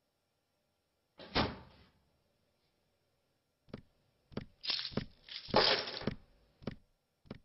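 Cartoon sound effects: a single heavy thunk about a second in, then after a pause a run of knocks and scuffing thuds of uneven length.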